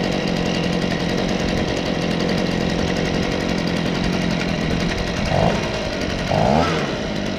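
Stihl BG55 two-stroke leaf blower engine idling steadily on a newly fitted aftermarket carburettor while its idle speed is being set. Near the end the throttle is blipped twice, each a short rev up and back down.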